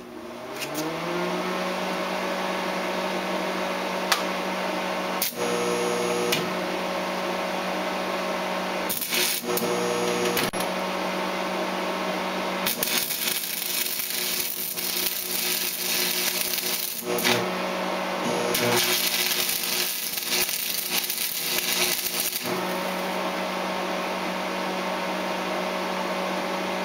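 Lincoln AC/DC 225/125 stick welder switched on: its hum rises in pitch for about a second, then holds steady throughout. Over the hum, a 6011 electrode arc crackles on DC positive. There are two short strikes about five and nine seconds in, then two longer runs of about four seconds each.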